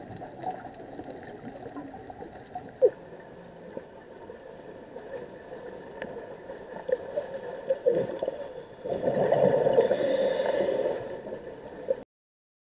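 Underwater sound of a scuba dive: a quiet gurgling background with a few sharp clicks, then a burst of a diver's exhaled regulator bubbles lasting about two seconds near the end. The sound cuts off abruptly just before the end.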